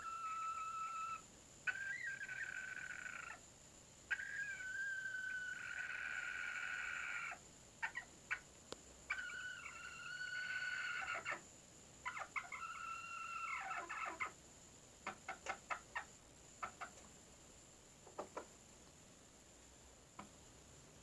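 Chickens calling: a series of long, drawn-out, level calls of one to three seconds each, separated by short pauses. Short sharp clucks fall between them and come in a quick run near the end.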